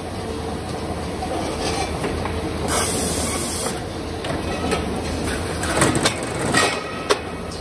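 Fritz Gross GS425 automatic circular sawing machine running through its cycle on tube stock, with a steady mechanical hum. About three seconds in there is a second-long hiss, and after it come several metallic knocks and clanks, the sharpest near the end.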